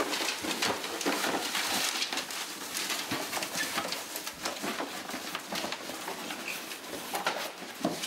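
Piles of paper letters and postcards being tipped out of cardboard boxes onto a table: a continuous rustling and pattering of paper.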